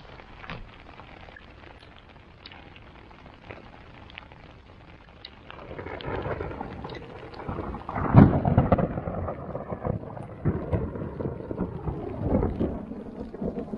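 Rain ticking on a tent's nylon fly, then a long rolling rumble that builds about five seconds in, is loudest around eight seconds, and keeps rolling on.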